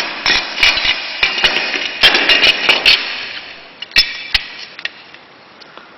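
Metal shower door handles clinking and knocking against each other and a hard surface as they are handled, a run of quick clattering knocks with a bright ring for about three seconds, then two single knocks and quiet.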